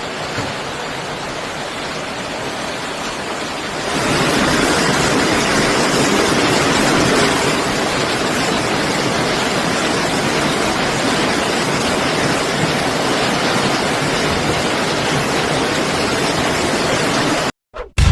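Floodwater rushing in a steady noisy torrent, getting louder about four seconds in and cutting off suddenly near the end.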